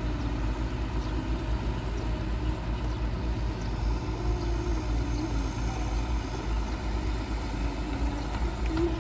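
Heavy diesel engine of an excavator running with a steady low rumble, with a faint wavering tone rising and falling now and then over it.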